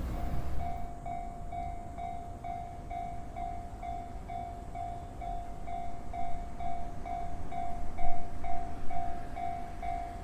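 Japanese level-crossing electronic warning bell starting up and ringing a steady 'kan-kan' of about two strikes a second, signalling that a train is coming. Underneath is the low rumble of a train running on the Chuo Line, louder near the end.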